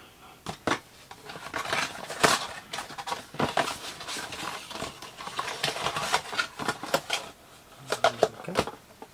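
Trading cards and plastic card holders being handled on a tabletop: a run of quick, irregular clicks, taps and light rustles.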